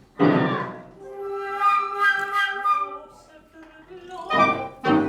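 A flute-like wind instrument playing a few held notes, with short, louder pitched sounds at the start and near the end.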